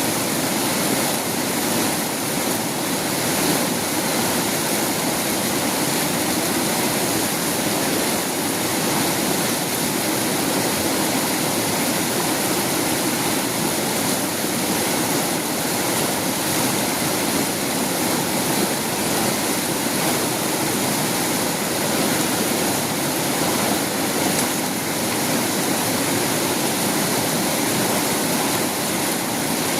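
Swift river water rushing steadily, an even unbroken wash of sound.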